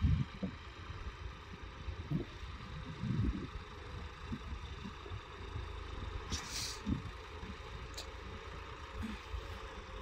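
John Deere 5405's three-cylinder diesel engine running steadily at a distance as the tractor pulls a single-tine subsoiler through the field, with irregular low rumbles and a short hiss about six and a half seconds in.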